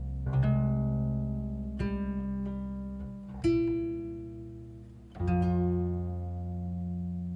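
Slow background music on a plucked string instrument, most likely acoustic guitar. Four chords are struck about one and a half to two seconds apart, and each is left to ring and fade.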